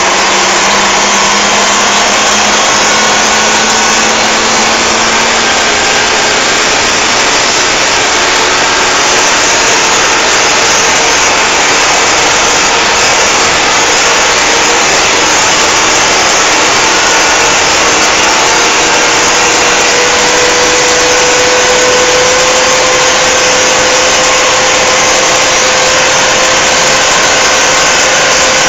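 Mercedes-Benz 911 timber truck's diesel engine running steadily under way, with a loud noisy drone and a faint whine that slowly rises in pitch in the latter part.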